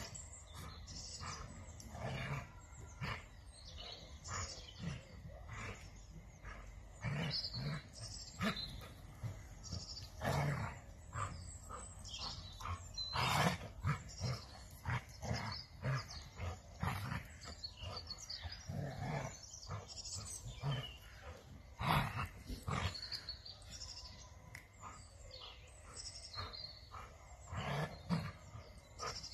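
A dachshund puppy and a large white dog play-fighting on grass: irregular short dog noises and scuffles, loudest about 13 seconds in and again about 22 seconds in.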